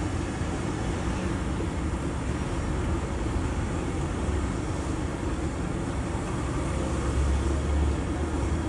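Steady low rumble with an even hiss over it from egg-coated pav frying on a large flat iron tawa; the rumble swells a little near the end.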